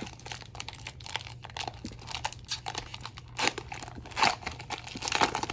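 A trading-card pack wrapper crinkling and being torn open by hand, a dense run of crackles with louder bursts of tearing in the second half.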